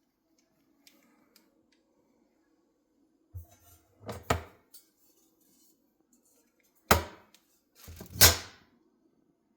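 A few separate thuds and knocks of objects being handled and set down, the loudest two near the end, over a faint steady hum.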